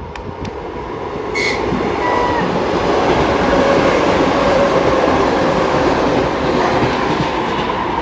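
Red electric commuter train (elektrichka) passing beneath a railway footbridge. The rushing rumble of its wheels and carriages builds from about a second in, is loudest in the middle and eases toward the end.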